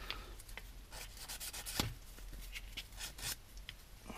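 Small needle file scraping across a broken part in short, irregular strokes, roughening the break and taking off leftover adhesive residue.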